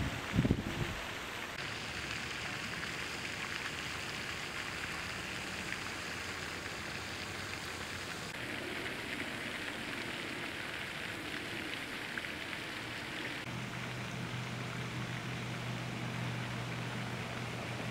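Steady hiss of water splashing from a pond's spray fountain. A brief low thump comes about half a second in, and a low steady hum joins in the last few seconds.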